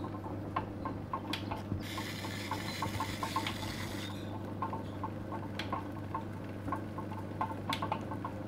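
Potter's wheel spinning with a steady low hum while a clay cup is shaped on it by wet hands and a rib tool. A hiss of about two seconds comes about two seconds in, over scattered light clicks and short high chirps.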